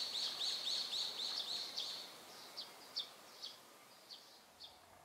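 A high chirping call outdoors: a quick run of short chirps, about five a second, that slows and fades out over the last few seconds.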